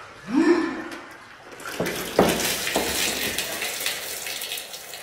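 Water gushing out and splashing down onto the floor, starting with a few sharp slaps about two seconds in and going on as a steady spatter.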